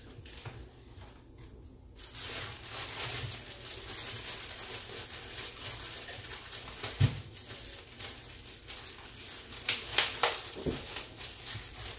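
Packaging crinkling and rustling as it is handled, starting about two seconds in, with a single knock midway and a few sharp clicks near the end.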